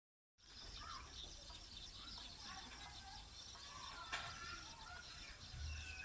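Faint chorus of small birds chirping and twittering, many short varied calls overlapping, with one sharp click about four seconds in.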